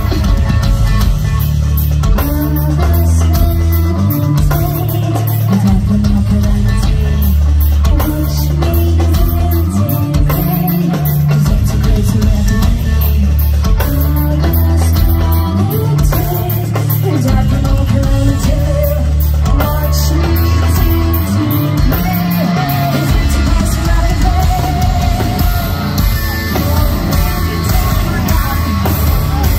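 Heavy metal band playing live: distorted bass and guitar riffs over a drum kit, with a female lead singer's vocals through the microphone. The riffs run in chunks broken by a few short stops.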